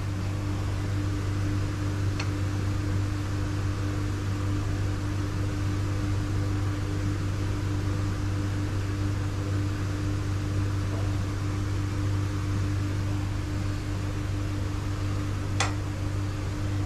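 Steady low electrical hum of running workshop equipment, with a faint metallic click about two seconds in and a sharper one near the end as the steel setting bars of the cylinder-head pressure-test rig are handled.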